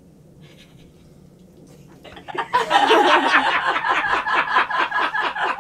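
A person breaking into laughter about two seconds in: a fast, steady run of short laugh pulses, loud and close.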